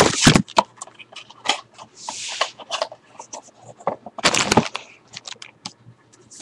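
Clear plastic packaging crinkling and crackling as it is handled, with many small clicks and louder rustles at the start, about two seconds in and about four seconds in.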